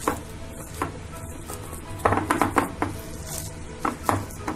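Hand kneading and pressing minced mutton mixed with gram flour in a glass bowl: irregular wet squishing of the mince with sharp knocks of the hand against the glass, working the mixture until it binds.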